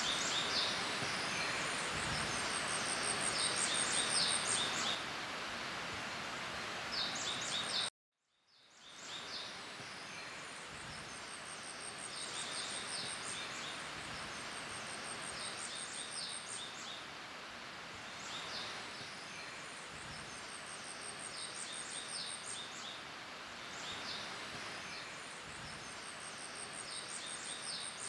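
Forest ambience: small birds singing high, thin trills and short chirps again and again over a steady hiss. The sound cuts out abruptly about eight seconds in and fades back up a second later.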